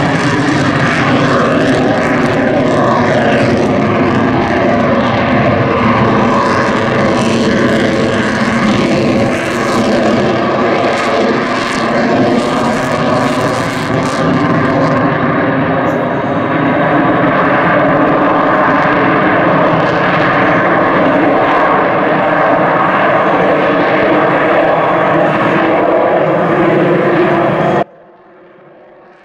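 Lockheed Martin F-22 Raptor's twin Pratt & Whitney F119 afterburning turbofans, loud and steady in flight, with an engine tone that slowly shifts. The sound drops abruptly to a much quieter level near the end.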